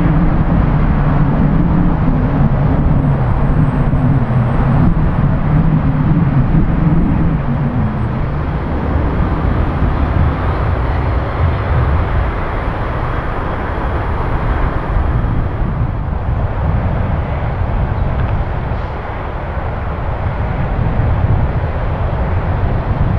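Jet airliner engine noise, loud and continuous, with a strong low rumble for about the first eight seconds that then eases into a steadier rushing noise.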